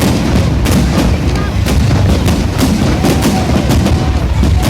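Fireworks display: aerial shells bursting in quick, irregular succession, several sharp bangs a second over a continuous low rumble.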